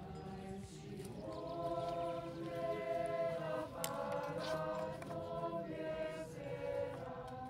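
A group of young people singing together as a choir, holding long notes in chords that change in steps.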